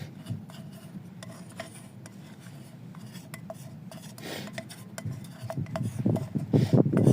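A spoon scraping and clinking inside a can, scooping out the last thick gunk; the scraping gets busier and louder near the end.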